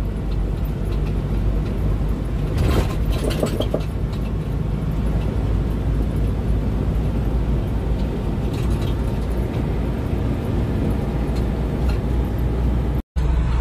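Steady low rumble of a large vehicle's engine and tyres heard from inside the cab while driving, with a short bout of rattling about three seconds in. The sound cuts out for an instant near the end.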